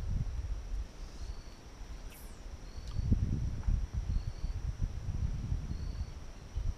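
Wind gusting on the microphone in an uneven low rumble, over a steady high insect drone and a short high chirp repeating about every second and a half.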